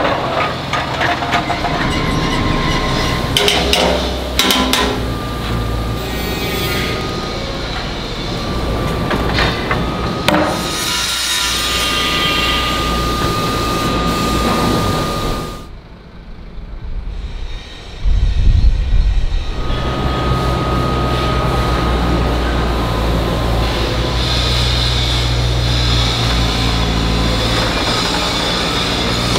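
Cast-iron foundry machinery at work: metal clanks and knocks from the moulding line and steel mould flasks on roller conveyors, over a steady high whine. After a short drop, a loader's engine runs steadily as it handles scrap iron.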